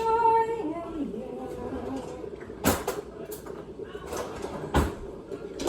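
Household clatter: a short held tone that bends down about a second in, then two sharp knocks about two seconds apart, like cupboard doors or objects being set down.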